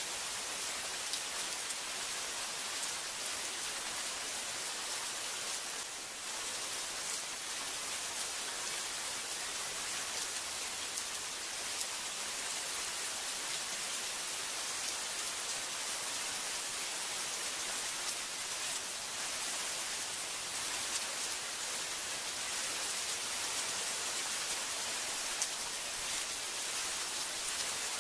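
Heavy rain falling steadily, an even hiss with a few sharper drop ticks scattered through it.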